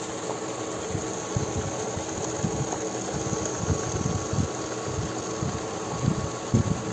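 Pot of pork sinigang bubbling on the stove, with irregular soft low pops from the simmering broth over a steady hum.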